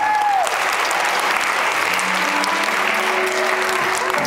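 Audience applauding, with music faint underneath.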